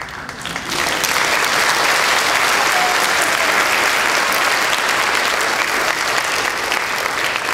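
Theatre audience applauding, swelling up over the first second and then holding steady.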